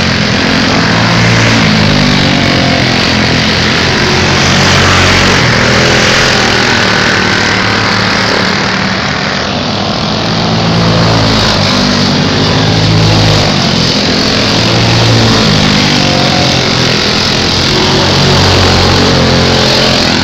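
Race car engines at full racing speed around an oval track, loud. The engine note swells and rises, then fades and drops, in waves every few seconds as the cars pass and go round.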